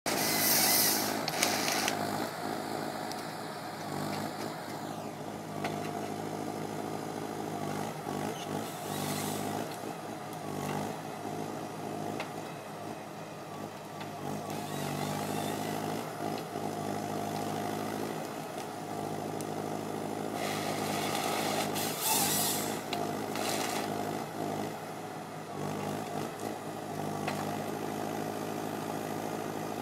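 Timbear tracked forestry harvester's engine running steadily under hydraulic load, its note shifting as the crane and harvester head work. Short bursts of hissing come at the start, about nine seconds in, and twice a little after twenty seconds.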